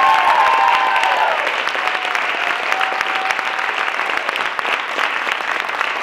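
Audience applauding, with whoops and cheers over the first second or so that then fade, leaving steady clapping.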